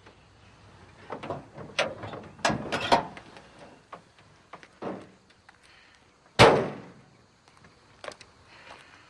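Knocks and clatter from an old open car as someone climbs out over its side, then one loud door slam about six and a half seconds in, with a few light knocks after.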